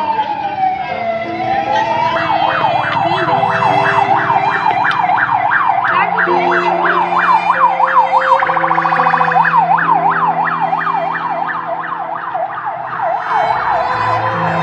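An emergency siren: a slow wail that falls and rises, switching about two seconds in to a fast yelp sweeping up and down about three times a second. Underneath is slow background music with long held low notes.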